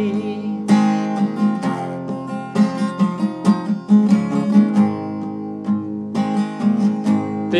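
Acoustic guitar strumming chords, an instrumental passage with no singing.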